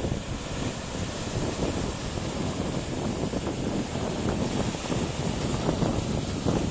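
Sea waves breaking and washing through shoreline rocks, a steady churning surf.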